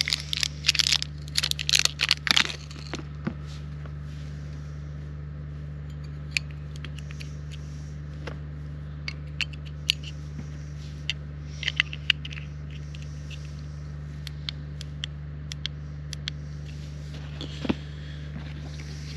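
Hands handling a headlamp and its elastic head strap: plastic clicks, scrapes and rustling, busiest in the first two and a half seconds and again briefly about twelve seconds in, over a steady low hum.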